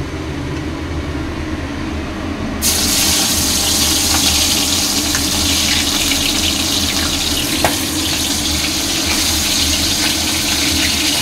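Hot oil in a frying pan breaking into a loud, steady sizzle about two and a half seconds in, as pieces of raw katla fish go in to fry.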